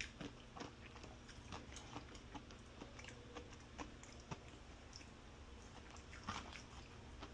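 Faint chewing of chicken nuggets close to the microphone: scattered small mouth clicks and smacks at an irregular pace.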